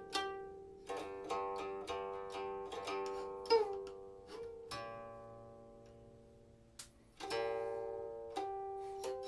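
Silk-string guqin played solo: plucked notes ring and decay, with a short sliding note about three and a half seconds in. In the middle one long note is left to fade, and the plucking starts again near the end.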